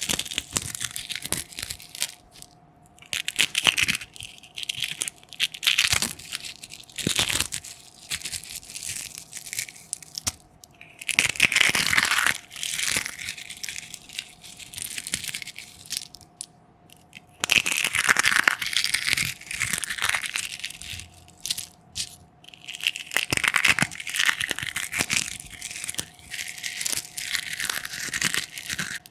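Eggshells being smashed and crushed: repeated spells of crackling and crunching, some sharp single cracks and several longer, louder stretches of fine crackle. A faint steady hum sits underneath.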